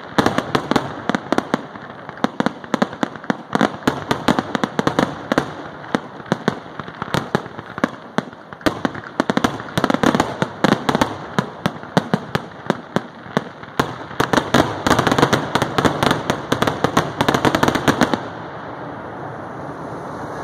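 Fireworks finale: rapid volleys of aerial shell bursts and crackle, many bangs a second, densest in the last few seconds. The bangs stop suddenly about two seconds before the end, leaving a steady rushing noise.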